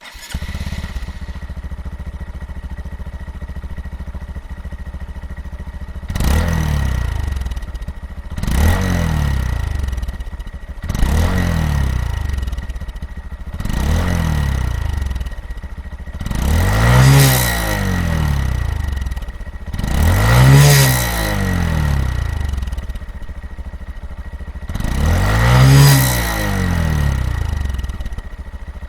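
Honda Monkey 125's single-cylinder four-stroke engine idling through its exhaust, then blipped with the throttle about seven times. Each rev rises and falls back to idle, and the later ones go higher and louder.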